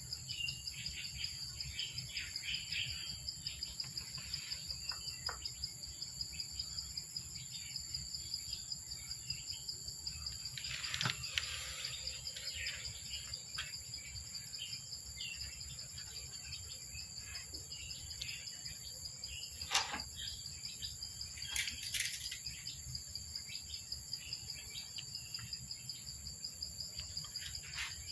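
A steady, high-pitched insect chorus with a pulsing trill, with small birds chirping now and then. A few short, sharp clicks stand out, the loudest about twenty seconds in.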